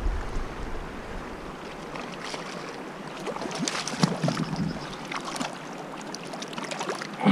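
Shallow river running over rocks, with wind rumbling on the microphone for the first second and a half. About four seconds in, a small hooked fish splashes at the surface as it is brought to hand.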